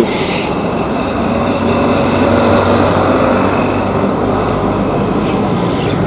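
Steady hum and rushing bubbling of aquarium air pumps and sponge filters running in the fish tanks, with a short hiss at the very start.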